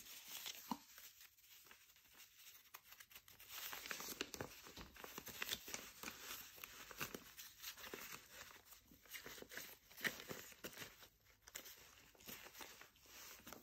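Faint, irregular rustling and crinkling of stained paper sheets and gauze as they are leafed through by hand.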